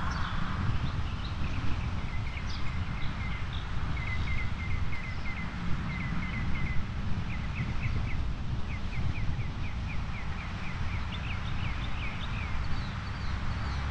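Small birds chirping in quick runs of short, high notes over a steady low rumble.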